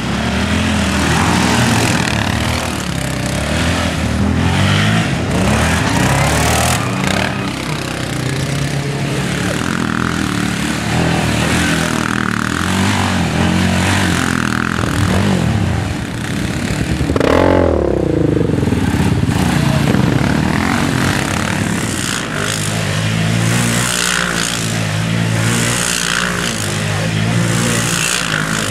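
Sport quad (ATV) engines revving up and down repeatedly as riders spin donuts, the engine note rising and falling over and over. About two-thirds of the way through, one engine's pitch sweeps sharply up and back down.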